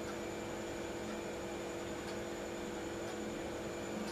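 Low, steady background hiss with a faint electrical hum: quiet room tone.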